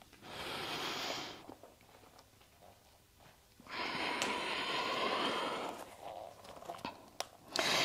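Audible human breathing: a breath of about a second near the start, a longer one of about two seconds midway, and another beginning near the end. A few soft taps fall between the last two.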